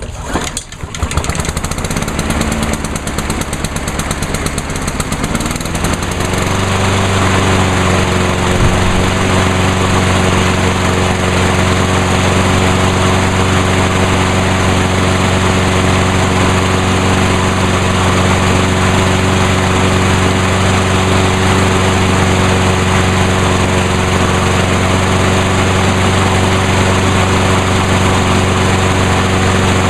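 Craftsman lawn mower engine running, speeding up about six seconds in and then holding a steady high speed. It is running again with no fuel leak after a fuel line and breather tube repair.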